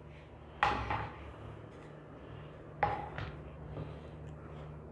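Thin wooden wall panels of a scale-model house being handled and set down on a table: a light knock about half a second in and two more close together near three seconds in, over a faint steady hum.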